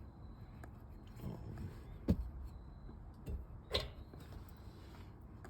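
Packaging and papers being handled during an unboxing: a few soft taps and rustles, the sharpest about two seconds in.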